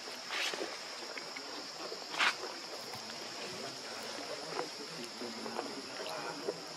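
Steady high-pitched drone of insects, with two brief louder sounds about half a second and two seconds in, and faint small scattered noises.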